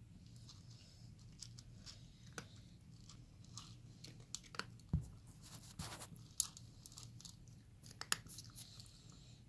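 Cat eating, with irregular crunches and clicks of chewing, the sharpest about five, six and a half and eight seconds in, over a faint steady low hum.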